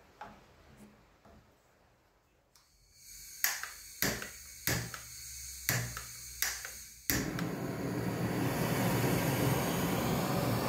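Handheld gas torch being lit: gas hisses from the nozzle while the igniter clicks about six times, then it catches about seven seconds in and burns with a loud, steady rushing noise.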